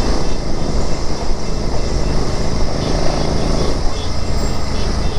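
Royal Enfield Interceptor 650's 648 cc parallel-twin engine running steadily while the motorcycle is ridden.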